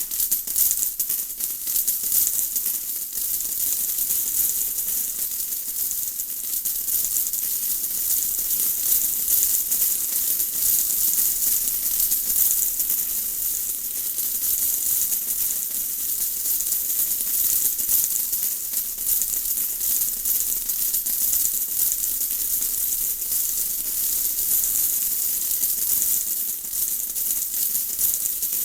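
Steady rain: a dense, high hiss of countless small drops with a fine crackle, no thunder and no breaks.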